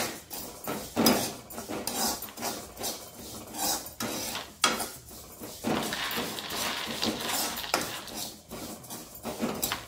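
A spatula scraping and knocking against a kadhai in irregular strokes, working through dry-roasted black sesame seeds.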